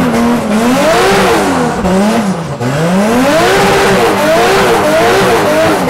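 Car engine driven hard, its revs climbing and falling again and again, over a steady hiss.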